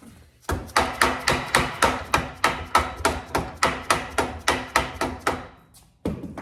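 Quick, evenly spaced hammer taps on the drill press's quill and pinion assembly, about three or four a second for some five seconds, then one more tap near the end. They are working the rust-bound, stuck quill free.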